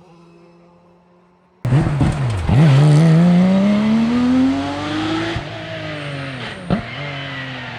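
Rally car engine at full throttle: the engine note rises steadily for about three seconds, drops at a gear change, then falls away, with a sharp crack shortly after. The engine cuts in suddenly about one and a half seconds in, after a faint quiet stretch.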